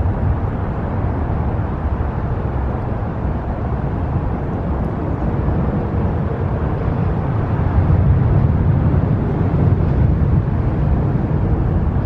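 Steady low rumble of road traffic on a busy highway bridge.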